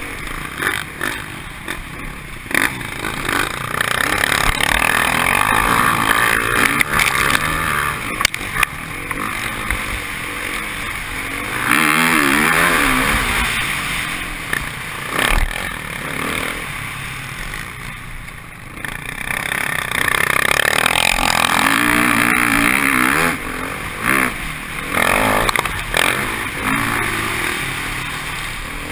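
Motocross bike engine, heard from a camera mounted on the bike, revving up and falling back again and again as it is ridden round the dirt track, with a few sharp knocks over bumps and landings.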